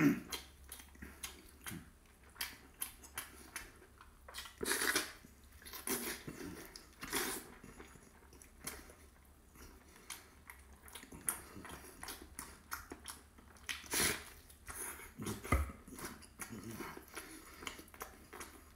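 Close-miked wet chewing and lip-smacking of a person eating braised pork with bare hands, irregular throughout, with a few louder wet slurps about 5, 7 and 14 seconds in.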